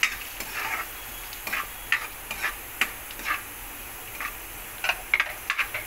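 A spatula scraping and clicking against a kadhai at irregular intervals as cashews, almonds and charoli are stirred while frying in ghee, with a faint steady sizzle underneath.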